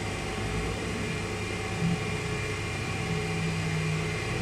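Steady hum of a D-bit grinder's motor and spinning wheel running free, with no cutting, while the part is out of contact. A low tone grows stronger in the second half.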